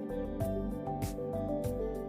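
Background music with a steady beat, bass and held melodic notes.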